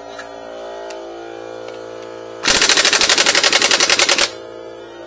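Pneumatic impact wrench hammering on a wheel's lug nut: one burst of rapid blows, just under two seconds long, starting about halfway in.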